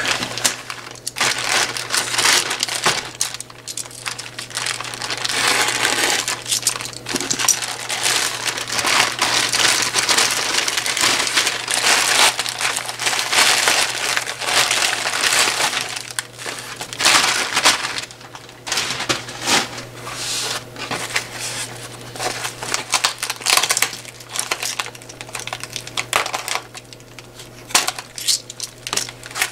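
Plastic courier mailer, foam wrap and a plastic bag rustling and crinkling in the hands as a parcel is opened, in irregular bursts with short pauses.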